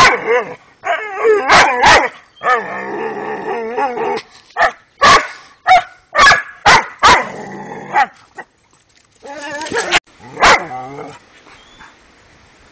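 Dog barking and whining: a run of sharp barks mixed with long, wavering, high-pitched whines, the last bark about ten and a half seconds in, after which only faint rustling remains.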